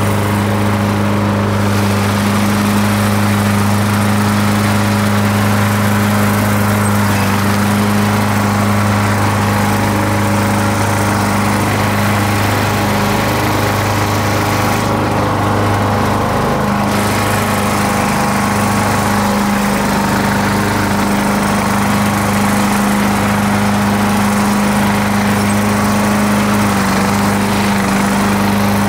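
Ariens riding lawn tractor's engine running steadily while mowing, a constant low hum that holds its pitch throughout.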